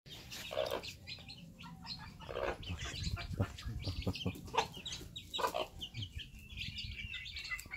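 Mother hen clucking in a few low calls while her chicks keep up a constant high peeping around her.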